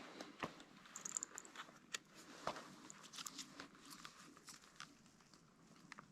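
Faint, irregular crunching and rustling of steps and movement in snow, a scatter of small crunches and clicks.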